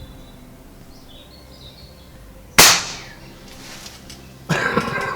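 A single loud pop from a BSA Meteor Evo spring-piston air rifle firing a silicone rubber bung pushed into the end of its muzzle, about two and a half seconds in, with a short ringing tail. A brief vocal exclamation follows near the end.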